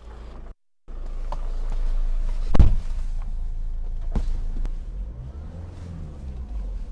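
JMC Yusheng diesel off-roader crawling over cross-axle ruts, its engine and drivetrain giving a steady low rumble. A loud knock comes about two and a half seconds in and a sharper one a little past four seconds; the chassis is otherwise free of creaks or rattles.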